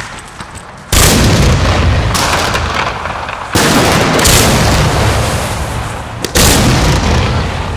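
Pyroland Butterfly Blues fan-shaped firework battery firing in three volleys, about a second in, about three and a half seconds in and about six seconds in. Each volley starts with a sudden loud blast that fades away over two to three seconds.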